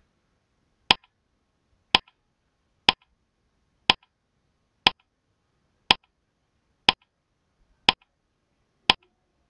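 Countdown timer's clock-tick sound effect: one sharp tick a second, nine in all, each with a faint second click just after it.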